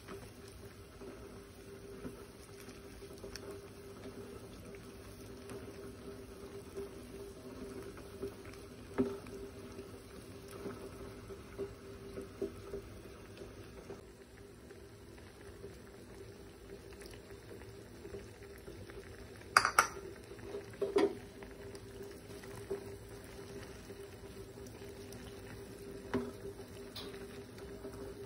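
Broth with fusilli pasta and shredded chicken boiling in an enamel pot as a spoon stirs it, over a steady low hum. A spoon knocks against the pot a few times about two-thirds of the way through.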